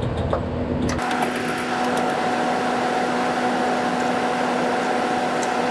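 Air conditioner's outdoor condenser unit running, picked up with the microphone resting on the unit: a steady hum and an even rush of fan air. About a second in, the sound changes abruptly from a low rumble to this steadier hum and rush.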